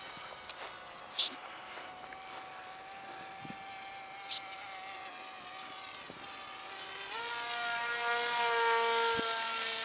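Wild Hawk RC plane's motor and propeller giving a steady high whine in flight. About seven seconds in, the whine jumps up in pitch and grows louder as the plane comes close overhead.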